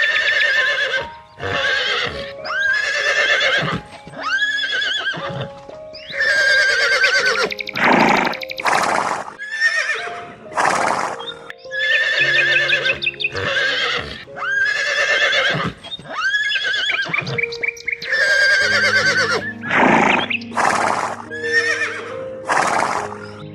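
Horses whinnying over and over, about a dozen loud, wavering calls every second or two, some of them harsher and noisier, over background music.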